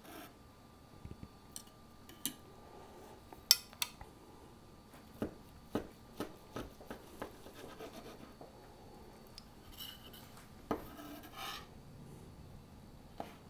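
Knife and fork cutting into a smoked meatloaf on a wooden cutting board: scattered light clicks and short scrapes of metal against wood, the sharpest click about three and a half seconds in.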